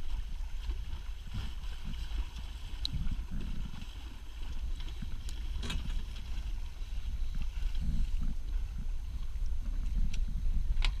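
Wind buffeting the microphone over water washing along the hull of a Sonata 7 sailing yacht, moving slowly in 6 to 7 knots of wind. A few sharp clicks come through, one about halfway and one near the end.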